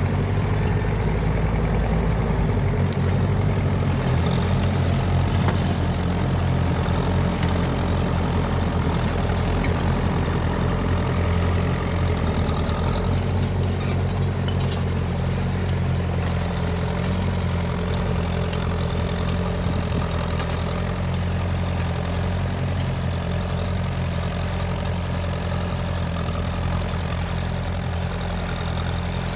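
Massey Ferguson T20 tractor engine running steadily with a low, even note.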